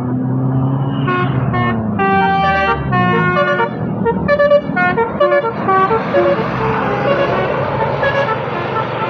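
A tourist bus's 'telolet' musical air horn plays a quick melody of short notes that jump in pitch, from about a second in until about halfway through. Then the bus's engine and tyres rush past.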